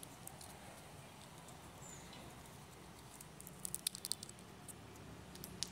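Faint, scattered crackling clicks from a dry, brittle tamarind pod shell handled in the fingers, with a quick cluster of them about three and a half seconds in, over a low background hiss.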